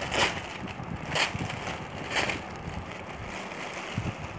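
Clear plastic packet crinkling and rustling as it is torn open and a cotton kurti is pulled out of it, with three sharp crinkles about a second apart.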